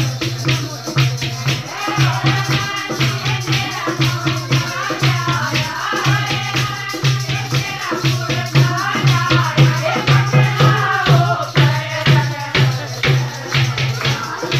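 Women singing together to a steady dholak drum beat, with hand-clapping on the rhythm.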